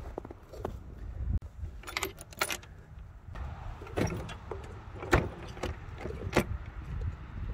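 Metal clinks and chain jingle from a ride-on railway car coupler and its hooked safety chain being worked by hand. A quick cluster of clinks about two seconds in, then single sharp knocks about four, five and six and a half seconds in.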